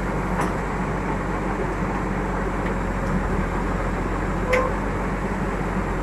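JCB backhoe loader's diesel engine running steadily while the backhoe boom lowers the bucket into the sluice gate opening, with two brief knocks, about half a second in and near the end.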